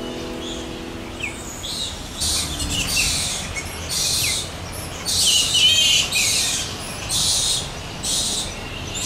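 A roosting colony of spectacled flying foxes calling: a string of short, harsh screeching squawks, about one a second.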